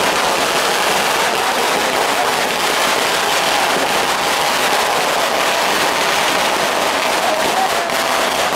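Kerala temple fireworks barrage (vedikettu): firecrackers going off so fast that the bangs run together into one unbroken, even crackling noise.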